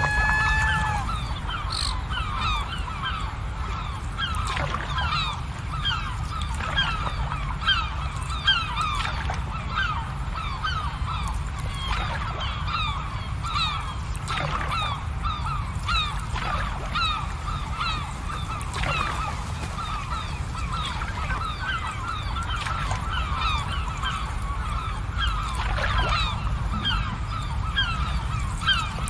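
A large flock of birds calling all at once, many short overlapping calls, over a steady low rumble.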